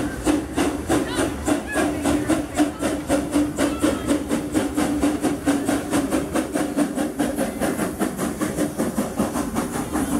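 Steam locomotive passing at low speed, its exhaust chuffing in an even rhythm of about four chuffs a second with a hiss of steam and a steady tone underneath.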